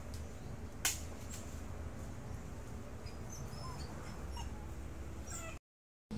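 Outdoor ambience under a fruit tree: a steady low rumble, one sharp crack about a second in, and a few faint, short high chirps from a small animal or bird in the middle; the sound cuts off abruptly shortly before the end.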